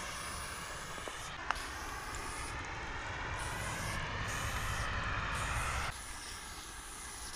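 Aerosol spray-paint can hissing steadily as green paint is sprayed onto a concrete wall, with a single click about a second and a half in. The hiss drops in level about six seconds in.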